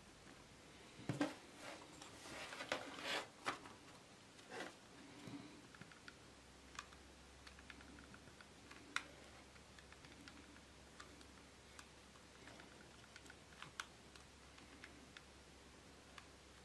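Light clicks and handling rustles of wires and a hot glue gun being worked on a fan heater's heating-element block. There is a cluster of louder knocks and rustles in the first few seconds, then only sparse, faint clicks.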